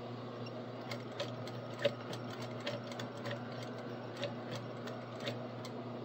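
Industrial sewing machine stitching slowly through nylon webbing: a steady motor hum with irregular clicks of the stitches, a few a second.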